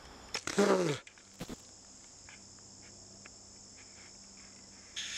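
Insects droning steadily on two high tones. About half a second in comes a short, loud cry that falls in pitch, and a brief hiss sounds near the end.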